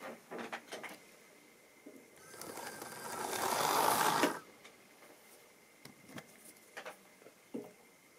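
Tri-ang model diesel locomotive running on the track, its small electric motor and wheels building up over about two seconds as it pulls away, then cutting off suddenly. There are a few sharp clicks near the start and scattered light clicks afterwards.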